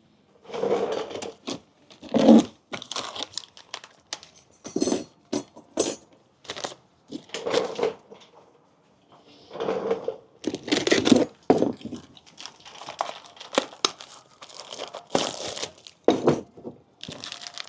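Plastic packaging crinkling and tearing, in many short irregular rustles, as a brake hardware pack is opened and handled.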